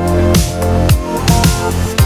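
Background music: an electronic track with a heavy bass and regular drum hits about twice a second.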